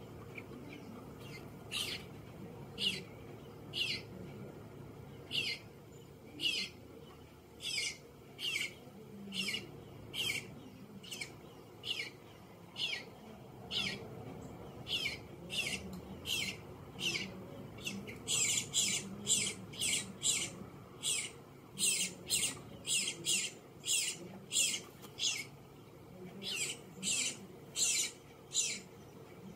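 Fledgling eastern bluebird giving repeated short, high begging calls, each dropping slightly in pitch. They come about once a second at first, then grow louder and closer together, about two a second, in the last third.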